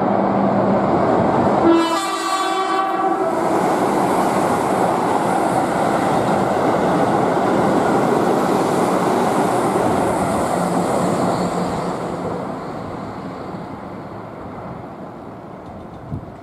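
Keihan electric train running through the station, sounding a short horn blast about two seconds in; its running noise fades away over the last few seconds.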